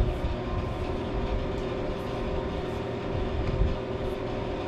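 Steady machine hum from a Monarch 10EE lathe in a workshop, with a few faint, irregularly spaced ticks.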